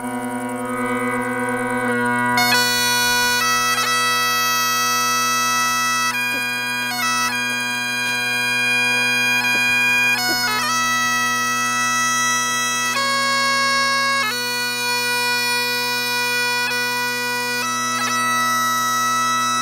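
Great Highland bagpipes start up abruptly and play a slow melody: changing chanter notes over a steady, unbroken drone.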